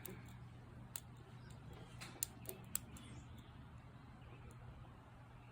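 Light metallic clicks of a McTickler lock pick working the pins of a 7-pin Paclock padlock under heavy tension, a handful of scattered ticks mostly in the first half, over a low steady hum.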